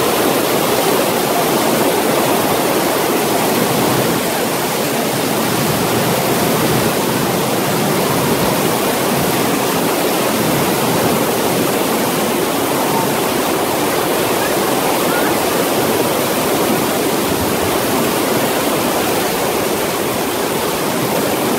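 Heavy rain pouring onto the sea surface, a steady dense hiss that holds even throughout.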